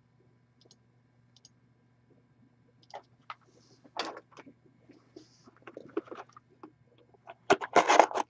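Sealed hockey card boxes being handled, with a few light knocks and scrapes. Near the end comes a loud burst of crinkling and ripping as the plastic shrink wrap on a box is cut and torn open.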